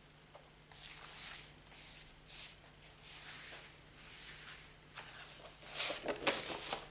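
Paper and cardboard record sleeves sliding and rustling as an LP in its inner sleeve is handled over an open gatefold jacket: a series of brief swishes, loudest in a cluster near the end.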